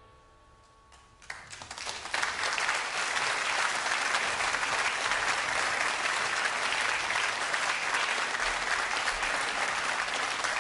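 Audience applause breaking out about a second in as the last held note of the band dies away, swelling quickly to steady, full clapping.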